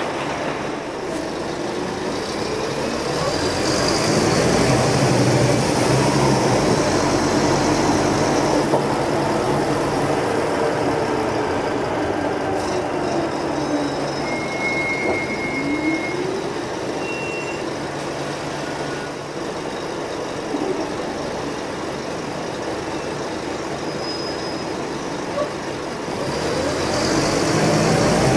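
Scania K320UA articulated bus heard from inside while driving: the diesel engine's note rises and falls with acceleration and gear changes over steady road and body noise, growing louder about four seconds in and again near the end.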